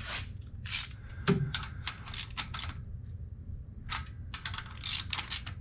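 Light metallic clicks and clinks of rocker arms and their lock nuts being handled on an LT1 small-block's exposed valvetrain, with one louder knock about a second in. A steady low hum runs underneath.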